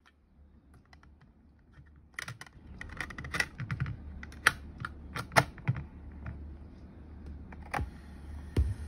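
Irregular plastic clicks and clacks as a hand handles a Supreme SS22 cassette player and works its keys and case. About two seconds of quiet come before the clicks, and a steady hiss comes in near the end.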